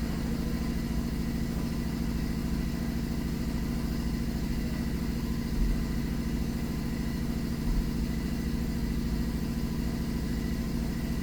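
A steady low mechanical hum with a constant tone, like an engine or machine running at idle, with two faint knocks partway through.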